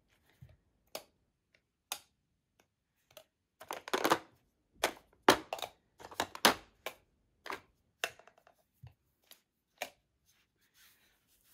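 Makeup compacts clicking and knocking against each other and the plastic drawer as they are picked out and set down one by one: irregular sharp clacks, busiest in the middle.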